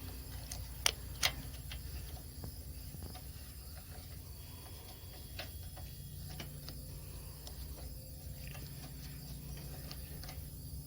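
Light metallic clicks and taps of small carburetor parts and hand tools being handled while a gasket and bolts are fitted, two sharper clicks about a second in, over a steady low rumble.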